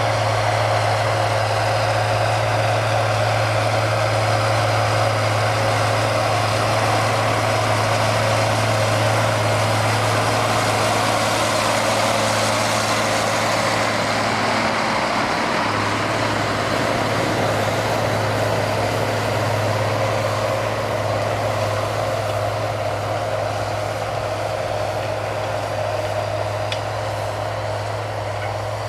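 Tractor engine running steadily under load, a constant low drone with broad mechanical noise over it, easing off slightly toward the end.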